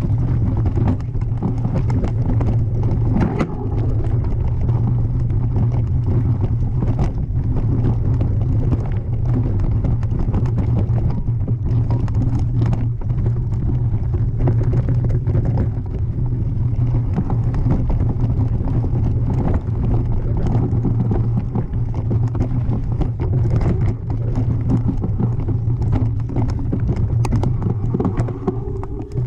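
Mountain bike descending a rocky singletrack, heard from a handlebar camera: steady wind rumble on the microphone under constant rattling and knocking of the tyres and frame over rock.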